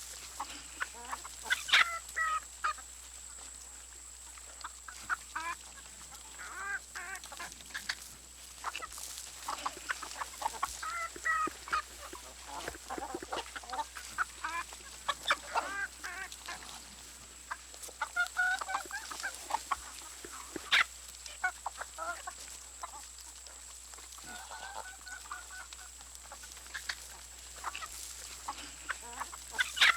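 A flock of chickens calling: many short calls overlap throughout, some sharper and louder than the rest.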